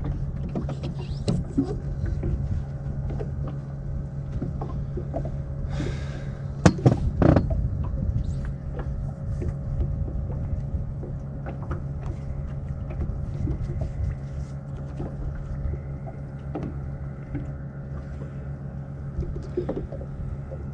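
Steady low hum of a boat's motor, with scattered small knocks and clicks and one louder knock about seven seconds in.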